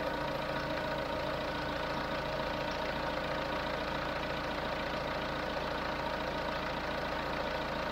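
Warm engine idling steadily, at operating temperature of about 98 °C.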